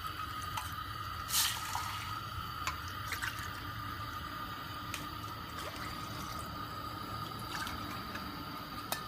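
Water with crushed herbs in a pot on a lit stove, heating for a kashayam: a steady low liquid sound with a few small clicks, the sharpest about a second and a half in.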